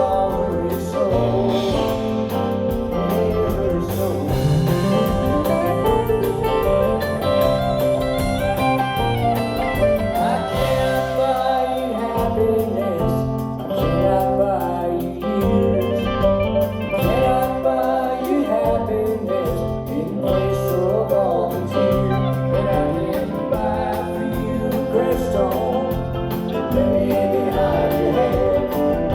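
A live country-folk band playing a song, with a lead voice singing over strummed guitars and a steady beat.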